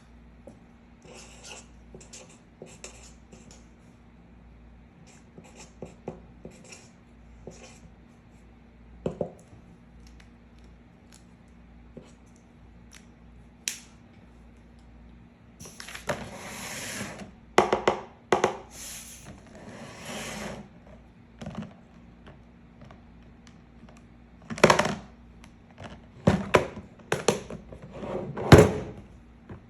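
Unboxing handling noises from a set of acrylic markers and their packaging: scattered light clicks and taps at first, then longer bursts of rustling and scraping in the second half, the loudest near the end.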